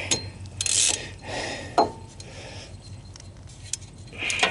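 Metal hand tools and a socket clinking and rattling as they are handled: a few separate sharp clicks and short rattles, busier near the end.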